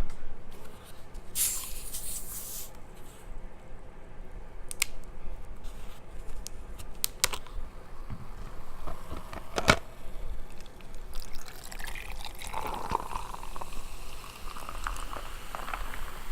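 Soda being poured into a cup, with a short hiss near the start and a few sharp clicks.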